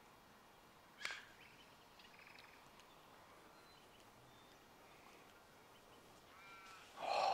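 Quiet open-air background with a bird calling shortly before the end, and a single sharp knock about a second in.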